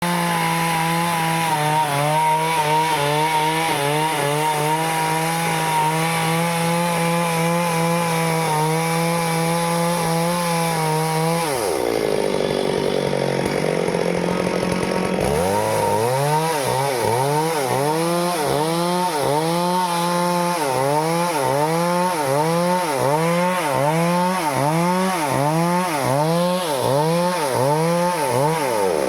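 Stihl two-stroke chainsaw cutting teak wood, held at high revs for about eleven seconds. The engine then drops back for a few seconds and picks up again, its pitch rising and falling about once a second to the end.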